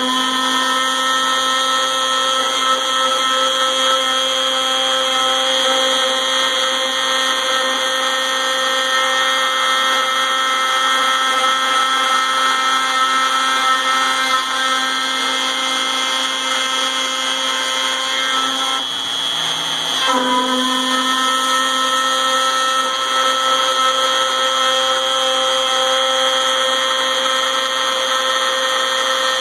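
Compact trim router on a CNC machine running on its lowest speed setting with a steady whine, its end mill cutting dry through a quarter-inch 6061 aluminum plate at 35 inches per minute and 0.015 inch per pass. About two-thirds of the way through, the whine dips briefly and glides back up.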